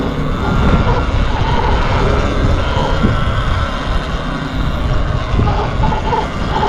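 Steady rumble of wind and motion noise from riding a Sur-Ron electric dirt bike, with a vehicle drone under it.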